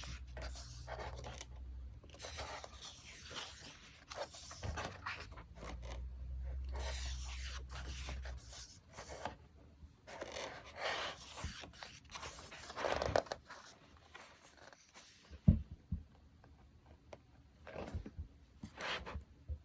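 Paper rustling and scraping as the pages of a photo book are handled and turned, with a few short knocks near the end.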